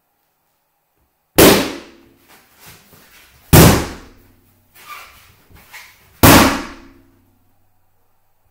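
Three loud balloon pops, roughly two to three seconds apart, each dying away with a short ring, with a few fainter sounds between them.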